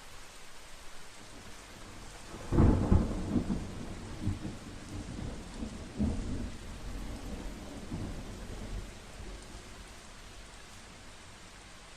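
Steady rain with a sudden clap of thunder about two and a half seconds in, which rumbles on with several further swells before slowly fading away.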